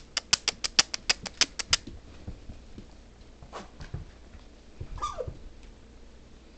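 Husky puppy claws clicking rapidly on a hard floor, about six clicks a second for the first two seconds. About five seconds in, a puppy gives a short whine that falls in pitch.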